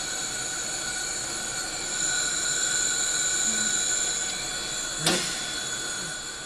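Steady hiss from the burner flame and sample nebulizer of a flame atomic absorption spectrometer, with high steady whistling tones in it, growing louder about two seconds in. A single sharp click about five seconds in.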